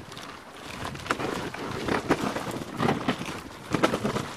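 Dog sled moving over snow, with a scraping crunch about once a second, the loudest near the end.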